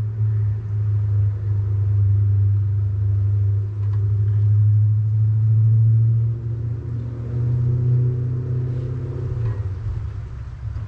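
Steady low rumble of a running motor, its pitch shifting about seven seconds in.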